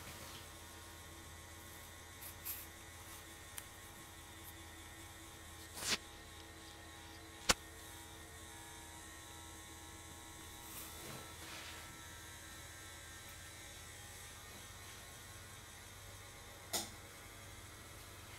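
Steady low hum of a desktop PC running while Windows setup loads files, with a few faint clicks and rustles scattered through; the sharpest click comes a little before halfway.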